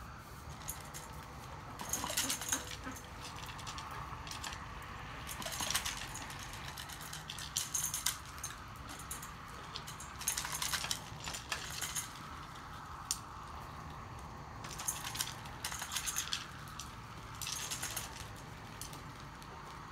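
Ducks' bills clattering against metal bowls as they scoop up dry cat food kibble, in spells of rapid clinking a few seconds apart.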